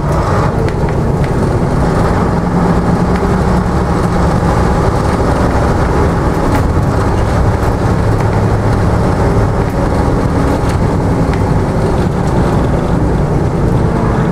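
Routemaster double-decker bus's diesel engine running steadily with a low hum as the bus drives along, heard from inside the bus together with its road noise.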